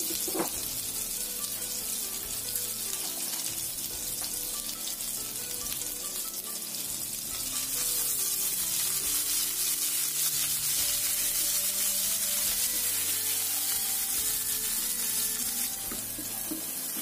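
Ground spice paste of dried shrimp, candlenuts, shallots and garlic sizzling as it sautés in hot oil in a pan, being cooked until fragrant. A spatula stirs it, and the sizzle gets louder about halfway through.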